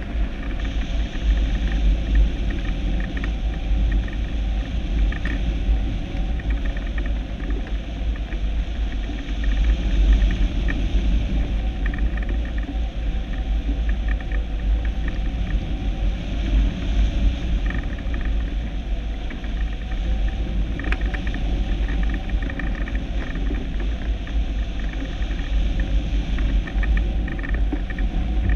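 Steady low rumble of wind buffeting the microphone, gusting up and down throughout.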